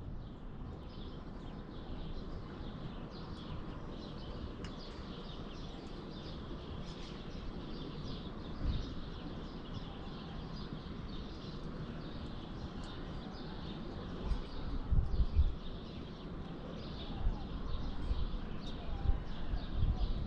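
Small birds chirping over and over in quick short notes, over steady outdoor background noise. A few low bumps hit the microphone, loudest about 15 seconds in and again near the end.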